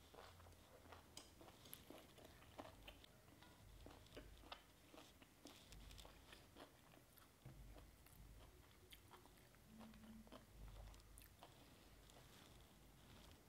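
Faint, close-up chewing of a crunchy raw beef and banana flower salad: irregular soft crunches and wet mouth clicks as a mouthful is chewed with lips closed.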